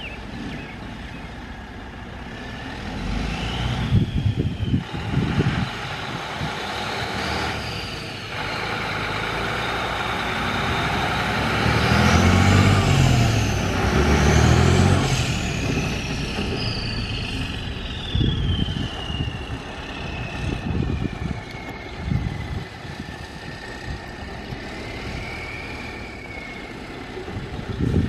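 Mercedes-Benz MBE 4000 12.8L inline-six turbo diesel in a 2007 Freightliner Columbia semi truck, revved several times. The biggest two revs come about twelve and fifteen seconds in, and after them the turbo whine slowly falls away over several seconds.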